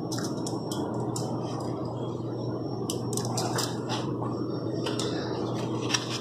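Steady low background hum with scattered light crinkles and ticks from aluminium foil on a baking tray being handled; no hammer blows.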